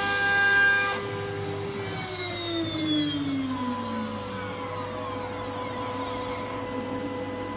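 Wood CNC router's spindle motor whining. About a second in the whine drops steadily in pitch for two to three seconds, then settles into a new steady whine.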